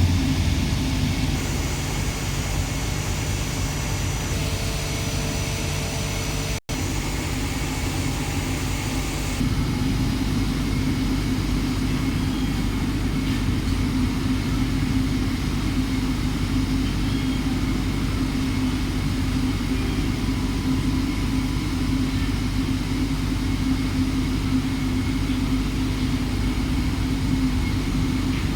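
CNC machine running, a steady mechanical hum with a few held tones. The sound drops out for an instant about six and a half seconds in.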